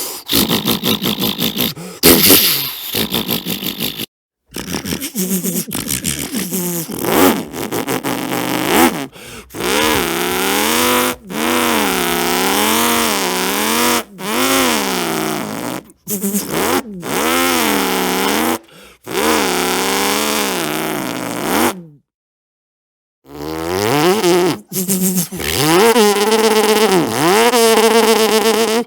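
A man imitating engines and machines with his mouth: a series of buzzing, sputtering mouth noises broken by short gaps. It opens with a fast putter, and later the pitch wobbles up and down about once a second.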